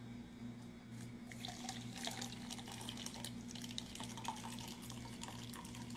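Water from a tap splashing and dripping in a sink, in irregular small splashes that grow busier about a second and a half in, over a steady low hum.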